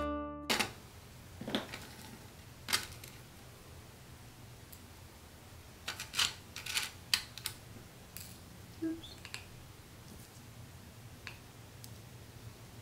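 Light clicks and taps of small glass pieces and tools being handled on a work table, scattered and irregular, with a quick run of them about six to seven seconds in.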